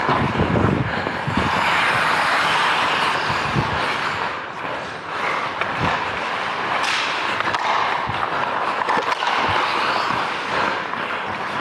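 Hockey skate blades carving and scraping across the ice, heard as a steady rushing hiss, with a few light knocks.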